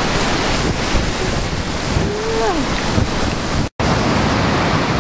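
Storm waves breaking and rolling onto a shallow lake shore, with strong wind buffeting the microphone in a loud, steady rush. The sound drops out for an instant a little before the four-second mark.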